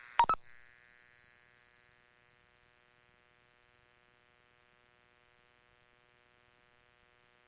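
Police dispatch radio audio between transmissions: a short, sharp double click just after the start as the last transmission cuts off, then a steady electrical hum with a faint buzz and hiss that slowly fades away.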